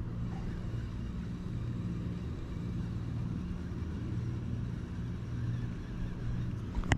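Steady low engine rumble with a constant hum, and one sharp click near the end.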